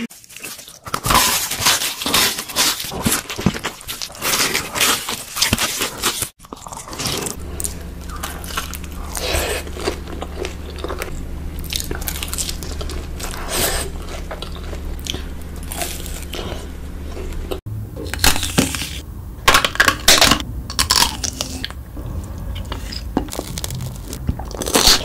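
Close-miked eating sounds from three mukbang clips cut together: crunchy bites and chewing of fried chicken tenders, then chewing and mouth sounds over a steady low hum, then more crunching and chewing. The sound cuts abruptly between clips twice.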